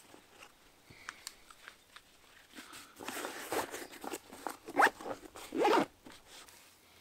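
Zip on a backpack pocket being pulled in quick rasping strokes, the two loudest about two-thirds through, with rustling of the pack's fabric as gear is stowed.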